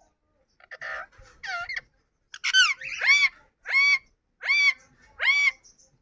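Yellow (lutino) Indian ringneck parakeet calling: two quieter calls, then a steady series of five louder calls, each sweeping sharply up in pitch and arching back down.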